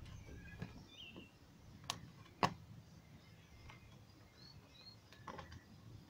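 A few sharp plastic clicks, the loudest about two and a half seconds in, as the push-in plastic clips are prised out of a Mk2 Ford Focus ST's plastic slam panel cover. Birds chirp faintly now and then.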